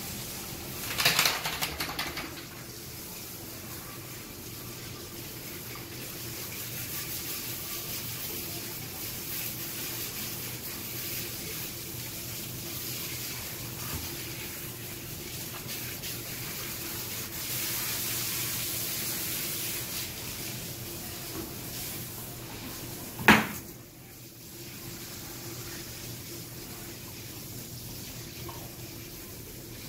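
Water spraying from a handheld hose nozzle onto a wet dog in a tiled wash tub, a steady hiss, louder for a moment about a second in. A single sharp knock comes about three quarters of the way through, after which the level briefly drops.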